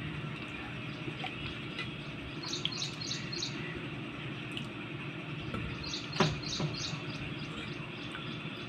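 Small bird chirping in quick runs of three or four short, high notes, twice, over a steady low background hum. A single sharp knock, the loudest sound, comes a little after six seconds in.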